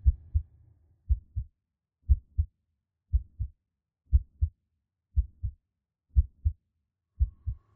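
Heartbeat sound effect: a steady lub-dub of paired low thumps, about one beat a second. The low background noise fades out about a second in, leaving the heartbeat on its own.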